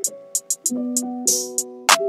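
Background music: keyboard chords over a programmed beat with short hi-hat-like ticks and a snare hit near the end.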